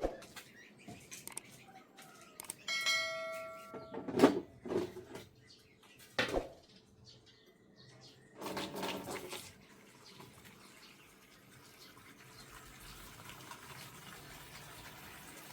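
Scattered knocks and clatter of vessels being handled, with one short metallic ring about three seconds in. In the last few seconds a steady rush of running water sets in.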